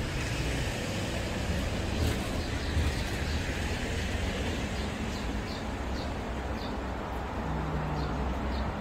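Steady outdoor street ambience: a low, continuous rumble of traffic and surroundings, with faint short high peeps repeating roughly twice a second in the second half.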